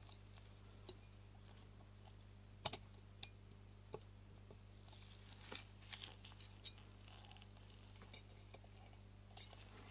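Sharp little clicks and taps of small parts and tools being handled while a camera lens shutter is reassembled: a few separate clicks, the loudest about two and a half seconds in, then softer fiddling noises in the middle, over a steady low hum.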